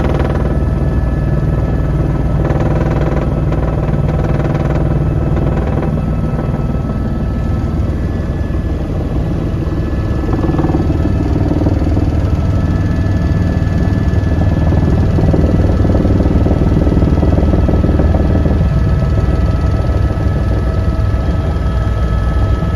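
Helicopter heard from inside the cabin during its descent to land: a steady deep rotor and engine hum with a thin, steady high whine over it.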